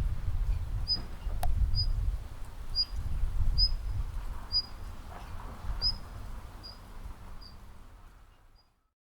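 A small songbird's short, high call note repeated about every three-quarters of a second, growing fainter, over a low rumble. All sound stops shortly before the end.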